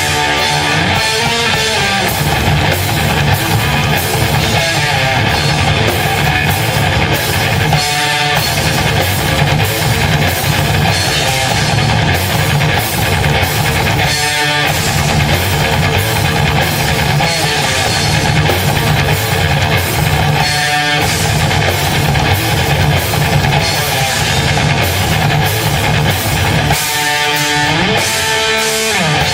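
Heavy rock band playing live: electric guitars over a drum kit with cymbals, a riff phrase coming round about every six and a half seconds.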